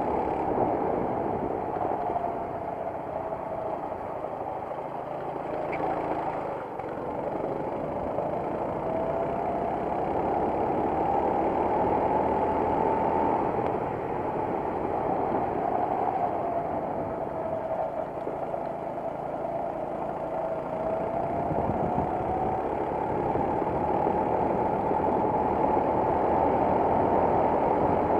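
Racing kart engine running hard, heard on board, its pitch rising and falling again and again as the kart speeds up and slows.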